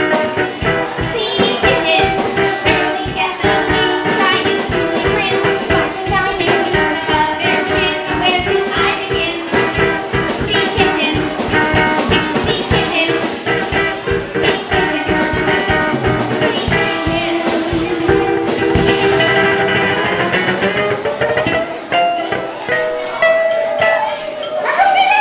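Live band music: two ukuleles strummed over a drum kit, with women's voices singing the melody.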